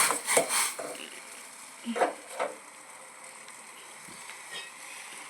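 A few short knocks and scrapes of a utensil against a cooking pot on the stove, about half a second, two and two and a half seconds in, over a faint steady hiss.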